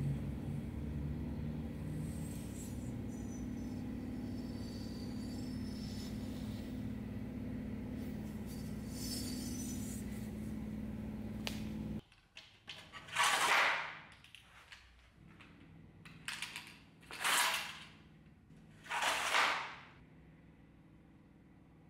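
A steady low hum with faint metal clinks as the shashka blade is handled. After a sudden cut it drops to a faint hiss, and three loud swishes follow a few seconds apart, each about a second long, from the blade sliding against its scabbard.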